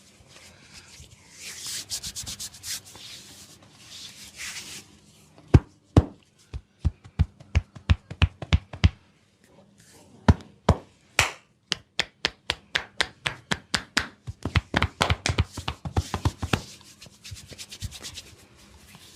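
Hands rubbing over oiled skin during a massage, then runs of sharp slaps and chopping strikes from the hands, several a second, coming fastest near the end.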